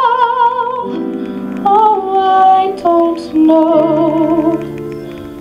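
Woman singing a slow song live, holding long notes with wide vibrato over sustained piano chords; the music grows softer near the end.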